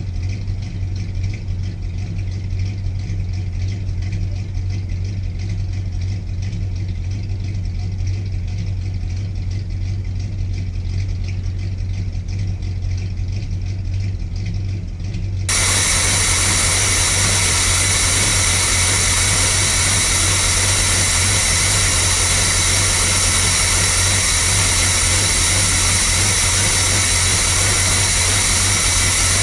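Chevrolet 454 (7.4 L) big-block V8 idling steadily, running on freshly fitted valve stem seals. It is heard first from outside the motorhome as a low hum. About halfway in it turns abruptly much louder and fuller, close to the open engine cover.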